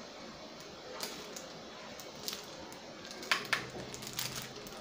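A few light clicks and taps from a plastic makeup palette and brush being handled, with two sharp clicks close together past the middle.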